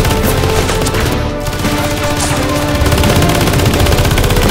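Rapid automatic fire from a Nerf Rival ball blaster, a dense unbroken run of shots, over background music.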